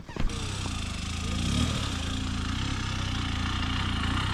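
Enduro dirt bike engine running at low revs, starting abruptly just after the beginning and growing steadily louder as the bike approaches.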